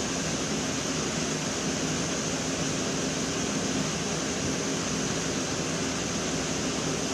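Steady background noise: an even hiss over a low hum that doesn't change, of the kind a running fan or air conditioner gives.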